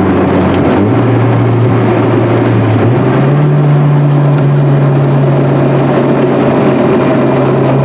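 A loud, steady engine drone with a heavy rushing noise and a low hum that steps up in pitch about a second in and again about three seconds in.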